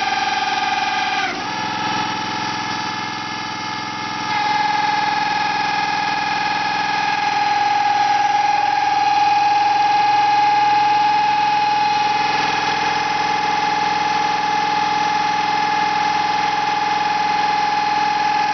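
Homemade drilling rig's engine-driven hydraulics running with a loud, steady high-pitched whine. The pitch sags and the sound drops about a second in as the load changes, then picks up again after about four seconds and holds steady.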